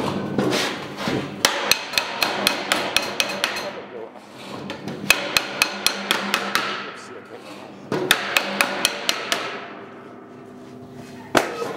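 Galvanized sheet-metal cylinder being struck in quick runs of sharp blows, about four a second, the tin body ringing after each one; the runs stop and restart twice, and one last strike comes near the end.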